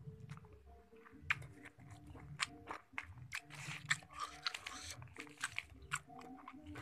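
A person chewing and biting a mouthful of nasi padang rice and chicken close to the microphone, with irregular crunchy crackles several times a second.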